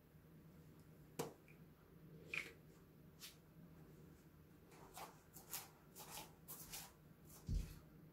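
Quiet room with scattered faint clicks and light rustling handling noises, and a dull low thump near the end.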